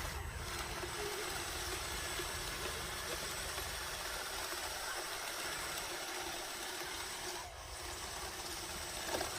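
Radio-controlled model bulldozer running with a steady mechanical hum, a faint high whine over it. It dips briefly about seven and a half seconds in, and there is a short knock near the end.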